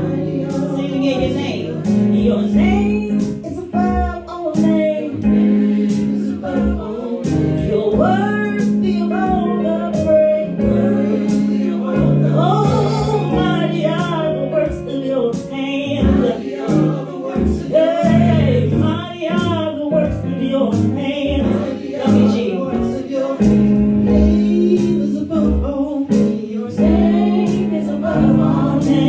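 Worship song: singing over guitar and band accompaniment, with a steady beat.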